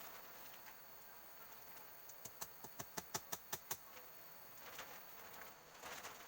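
Steady faint high buzzing of forest insects, with a quick run of about ten sharp clicks in the middle, several a second.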